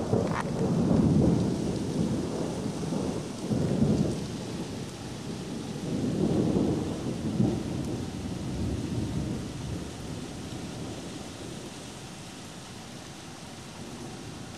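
Thunder rumbling in rolling waves, loudest at the start with another swell about six seconds in, then dying away over the last few seconds, over the steady hiss of rain.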